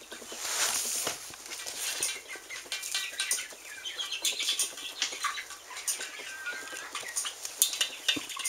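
Flock of young chickens clucking and chirping, with many light clicks of scratching and pecking in wood shavings. A brief rustle comes near the start.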